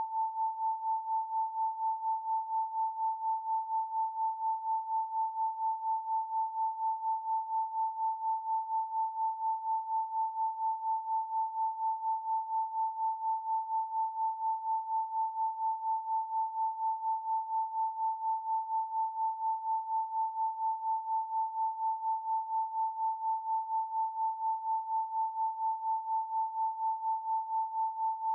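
Pure 888 Hz sine tone, held at one pitch and pulsing evenly about three times a second, as in a binaural-beat meditation track.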